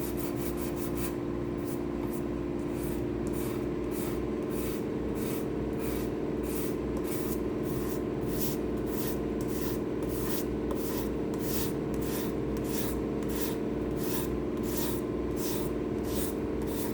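Hand sanding cured epoxy pour fill on a guitar body's edges, sandpaper scraping back and forth in even strokes about two a second, dusting the shiny epoxy down to a fine powder. A steady low hum runs underneath.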